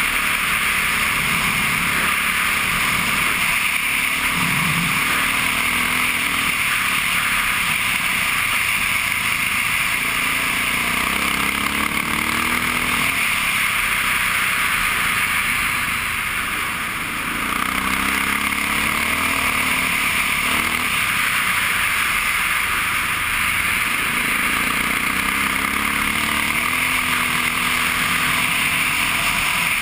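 Honda XR650R single-cylinder four-stroke dirt bike engine running under way over a steady rushing noise. Its pitch climbs several times as the rider accelerates, and it eases off briefly around the middle.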